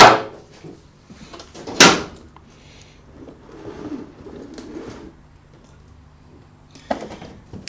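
Two sharp knocks about two seconds apart, then soft handling rustle and a lighter knock near the end: hard objects being handled while working at the mower's oil drain.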